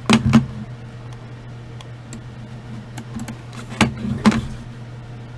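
Two sharp double clicks, one at the start and one nearly four seconds in, over a steady low electrical hum.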